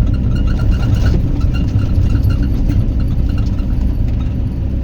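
Diesel engine of heavy equipment running steadily with a deep rumble and a light rattle over it.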